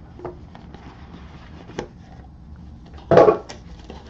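Handling noise of a cardboard product box being turned over and opened: scattered light taps and clicks, with a louder bump a little after three seconds in.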